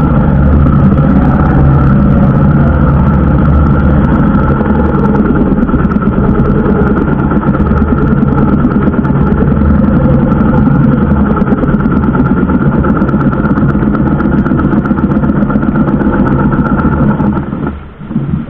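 The small outrigger fishing boat's engine is running loud and steady as the boat motors across open sea. Near the end the engine noise drops off sharply as the boat is throttled back to come alongside the mother boat.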